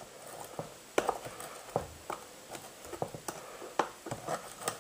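Irregular small clicks and knocks of hands handling chainsaw parts and hand tools, about a dozen light strikes, the sharpest about a second in.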